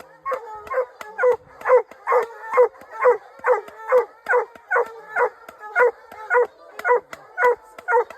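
Hunting hounds barking treed: a steady, rhythmic run of barks at about two a second, the chop that tells the quarry is up a tree.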